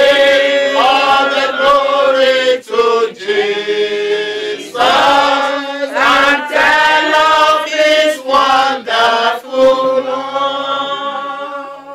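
A small group of men and women singing together in long held notes, a slow chant-like song sung in phrases with short breaths between them.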